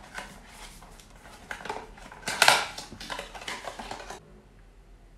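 A small cardboard gift box is opened by hand and a bottle is slid out of it: cardboard scraping and rustling, loudest about two and a half seconds in, stopping about a second before the end.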